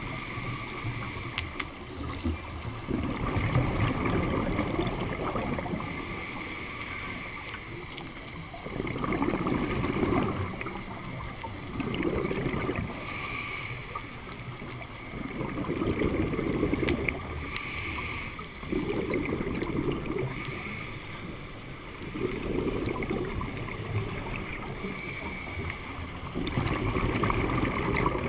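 Scuba diver's exhaled bubbles from the regulator, heard underwater through the camera housing as a low bubbling rumble that swells every three to four seconds, over a steady faint hum.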